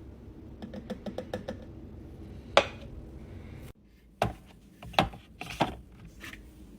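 Hard plastic clicks and knocks from a breast pump and its parts being handled: a quick run of light clicks, one sharp knock, then after the background hum suddenly drops out, three more knocks.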